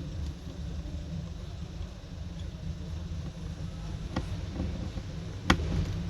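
Two sharp little clicks of small repair tools against the iPhone 6's metal parts as the camera screws go back in, the second louder, over a steady low rumble.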